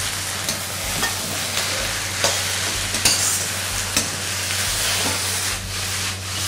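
Stir-fry of wide rice noodles, mushrooms and holy basil sizzling in a hot steel wok, with a metal spatula stirring and scraping through it in short clicks every second or so; the wok is tossed near the end.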